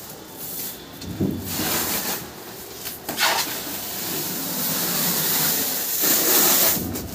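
Plastic stretch film crackling and hissing against a cardboard-wrapped almirah in several short surges, with rubbing as the wrapped load is handled.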